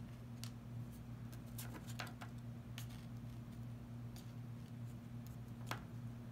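Baseball trading cards being handled and flicked through one at a time: a scattering of short, light clicks and flicks as each card is slid off the stack, over a steady low hum.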